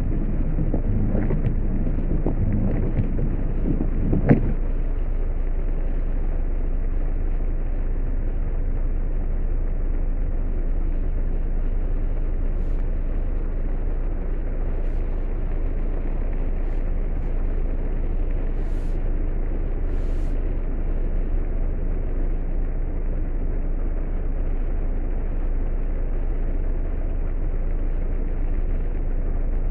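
Heavy rain on a car, heard from inside the cabin as a steady hiss over a low, even rumble. One sharp knock about four seconds in.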